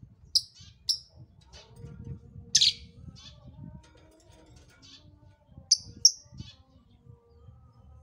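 Pastel blue lovebird giving short, shrill chirps: a pair near the start, the loudest single call about two and a half seconds in, fainter chirps after it, and another quick pair about six seconds in.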